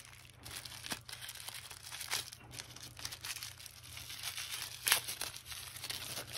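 Hands unwrapping a small white packet of mounting brackets and wiring blocks, the wrapper crinkling and rustling, with a few sharper crackles, the strongest near the end.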